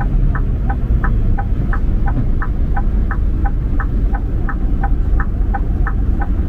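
Steady low road rumble of a car driving at speed. Over it there is a regular light ticking, about three ticks a second, alternating slightly in tone.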